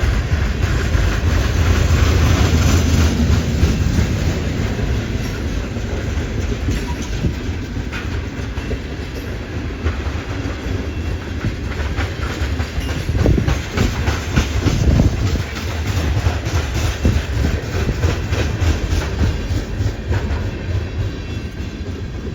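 Freight cars of a CN train rolling slowly past, steel wheels clicking over rail joints and the junction switch.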